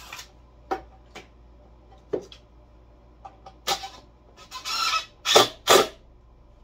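Workbench handling noises: a string of sharp knocks and clatters of parts and tools, with a short rasping burst about four and a half seconds in, followed by two louder knocks.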